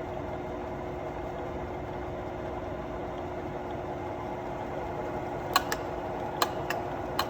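Alzmetall AB35S drill press running at low speed with its power down-feed engaged: a steady machine hum with a held tone. About six sharp clicks come in the last two seconds.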